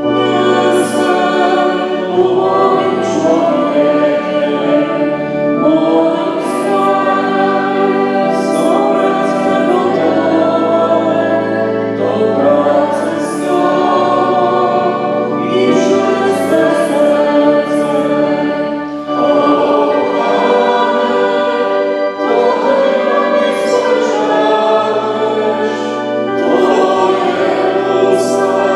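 Choir singing a hymn, the voices sustained over held bass notes that change every few seconds.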